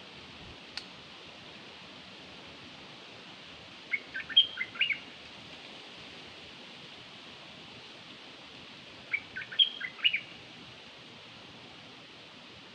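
Two bursts of bird chirps about five seconds apart. Each burst is a quick run of a handful of sharp notes lasting about a second, heard over a steady hiss. This is a lure call of the bird known in Thai as nok dok taeng.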